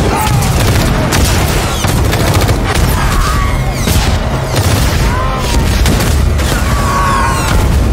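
Film sound effects of a rapid series of explosions from a drone attack: loud, deep booms and a steady low rumble, with many sharp cracks of debris over them.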